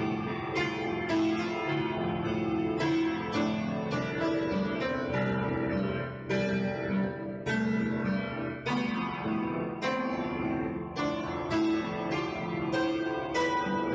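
Piano music: a melody of struck notes, about one or two a second, over held bass notes.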